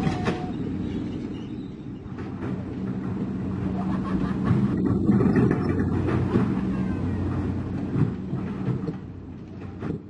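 Doosan DX225LCA excavator's diesel engine running steadily, with scattered knocks and clatter as the machine works on the self-loader truck's deck.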